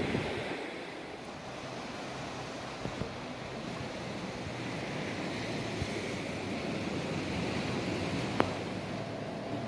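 Steady rushing of wind and sea surf, with a single sharp click about eight seconds in.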